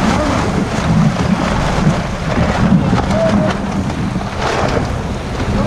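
Strong wind buffeting the microphone over water rushing and splashing along a sailboat's hull as it sails fast through choppy water.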